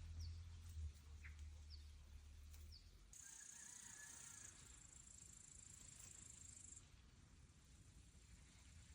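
Grasshoppers chirring in a steady high-pitched buzz from about three seconds in until near seven seconds, with a few short, faint falling bird chirps and a low hum in the first three seconds.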